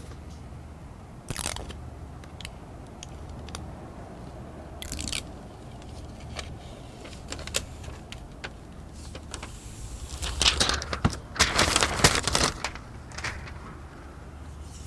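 Small clicks, taps and scraping from hands handling an iPad and pressing its new replacement glass screen down into place, with a busier stretch of rubbing and clicking about ten to twelve seconds in.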